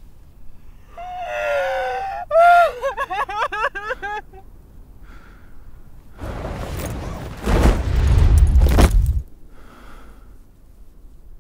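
A woman wailing and sobbing, her crying breaking into quick, shaky sobs up to about four seconds in. After a short pause comes a man's long, breathy gasping for air, loudest near its end and lasting about three seconds.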